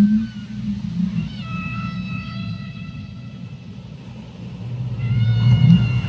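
Whale calls under water: two long, steady pitched cries with overtones, one starting about a second and a half in and another near the end, over a constant low rumble.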